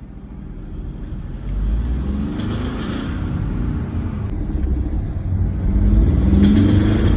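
Volkswagen Polo 1.4 TDI diesel engine pulling under load in the 2000–2500 rpm range, growing louder about a second and a half in and rising in pitch near the end. It has the 'çat çat' rattle that appears only under load, which the mechanic traces to faulty injectors delivering too much or too little fuel.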